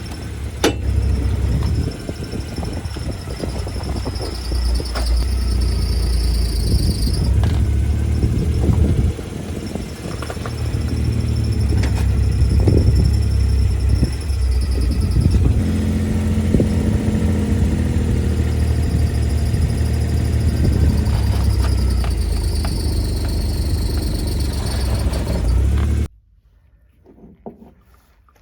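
Suzuki Jimny running with a steady low engine and drivetrain rumble, broken by sharp cracks every few seconds. This periodic cracking is the sign of a damaged differential ring gear. The sound cuts off suddenly near the end.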